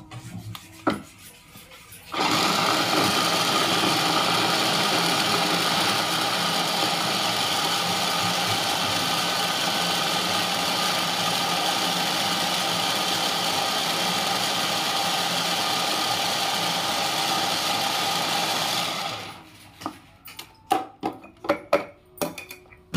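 Electric mini food chopper motor running steadily, mincing cauliflower. It starts about two seconds in and cuts off a few seconds before the end, followed by a series of clicks and knocks as the chopper's lid and bowl are handled.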